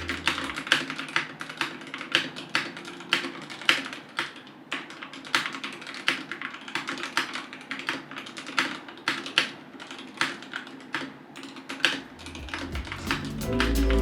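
Yunzii AK84 mechanical keyboard with Akko Matcha Green switches being typed on: an irregular run of key clicks, several a second, over faint background music.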